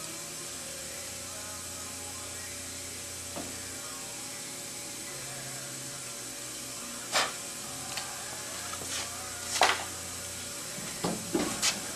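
Steady low workshop background with a few sharp clicks and taps from small hand tools and parts being handled: one about seven seconds in, one near ten seconds, and a quick cluster near the end.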